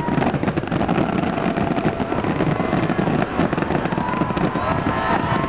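Fireworks display at full barrage: many aerial shells bursting and crackling at once in a dense, unbroken run of bangs.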